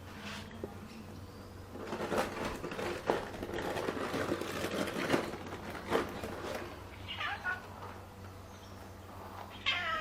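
Domestic cat meowing, with a short meow about seven seconds in and another near the end. Before the meows there are a few seconds of busy rustling and clicking noise.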